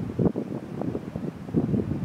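Wind buffeting the microphone: an irregular, gusty low rumble with no steady tone.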